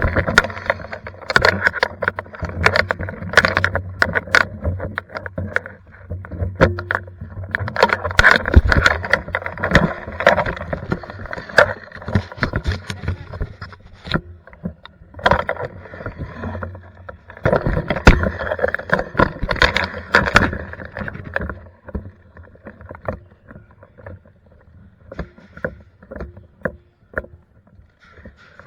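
Airsoft game noise: irregular sharp clicks and knocks, with several stretches of a few seconds of denser clattering noise, and only scattered clicks in the last several seconds.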